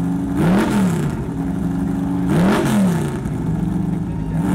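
Engine of a lifted mud-racing pickup running at idle, blipped twice: it revs up and falls back about half a second in and again about two and a half seconds in.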